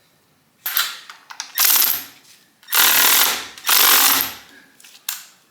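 Impact wrench run in four short bursts, each under a second, with a brief click near the end.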